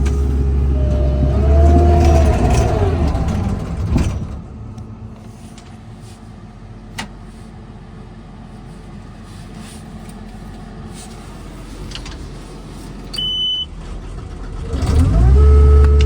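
Takeuchi TL12 tracked compact loader's Kubota diesel running loud with a hydraulic whine and a gliding pitch for about four seconds, ending in a sharp knock. It then goes much quieter for about ten seconds, with a single click and a short high beep. Near the end the diesel comes back up loud and steady.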